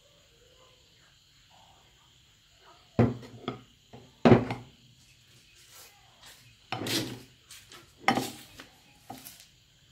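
Hard knocks of the meat grinder's metal parts (screw auger and locking ring) being set down on a wooden table, two sharp ones about three and four seconds in. These are followed by three clattering knocks as a glass bowl is moved on the table.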